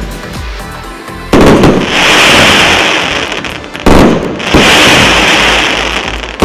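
A 1.25-inch multi-shot fireworks cake firing. Shells burst with a sharp bang a little over a second in, then give a loud dense hiss lasting about two and a half seconds. A second bang and hiss come near four seconds in.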